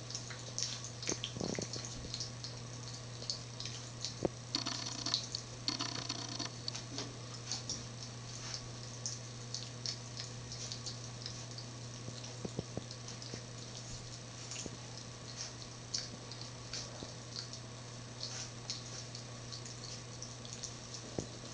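Boxer puppy mouthing and chewing at an adult Boxer's face: scattered small wet clicks and smacks over a steady low hum, with two brief noisier bursts about five and six seconds in.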